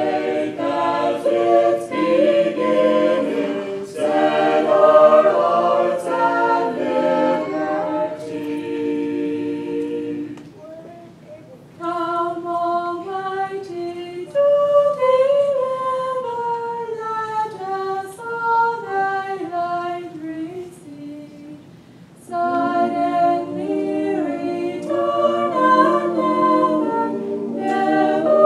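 A small mixed group of men and women singing a cappella into microphones, several voices sounding together. The singing thins to a brief pause twice, about 11 seconds in and again about 21 seconds in, then comes back in full.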